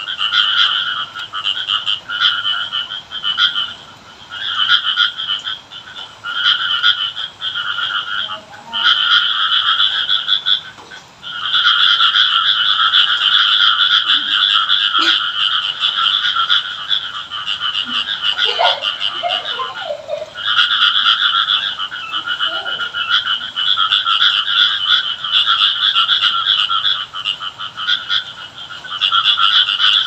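A chorus of frogs croaking, in bursts about a second long with short breaks that later run together into long unbroken stretches. A few faint whistles rise and fall in the background.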